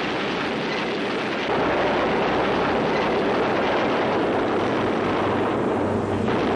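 Heavy bomber's piston engines running in flight, a dense, steady rumbling noise that gets a little louder about a second and a half in.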